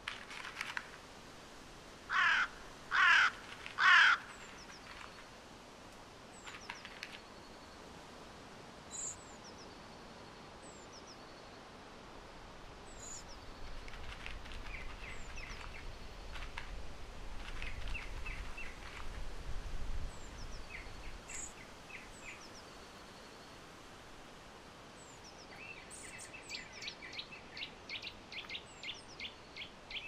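Wild birds calling: three loud, harsh caws of a crow about two to four seconds in. Thin high notes and bursts of quick repeated chirps from small songbirds follow, with a rapid run of chirps near the end.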